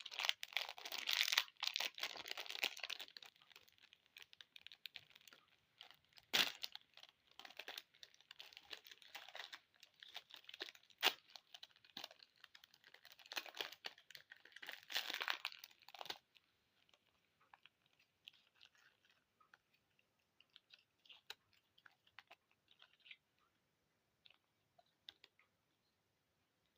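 Plastic candy and lollipop wrappers crinkling and tearing as they are handled and opened, with a few sharper clicks among them. About sixteen seconds in the crinkling stops, leaving faint scattered ticks.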